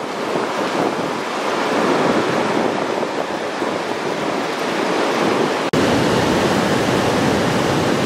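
Storm wind rushing through trees in strong gusts, buffeting the microphone. A little past halfway the sound cuts out for an instant and comes back with more low rumble.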